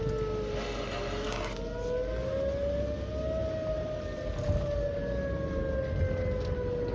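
Outdoor warning siren sounding a slow wail. Its pitch dips about a second in, rises for a couple of seconds, then slowly falls again.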